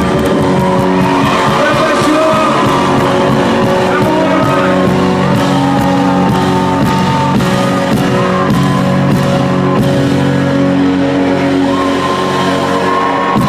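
Live band music heard from the audience at a loud concert: sustained keyboard chords with voices singing over them, and scattered clapping.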